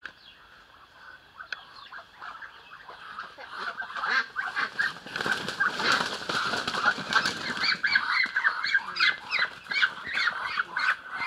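A flock of Muscovy ducks calling in alarm as they are chased and grabbed, with wing flapping and scuffling. The calls are sparse at first and build into a dense, many-voiced commotion from about three seconds in.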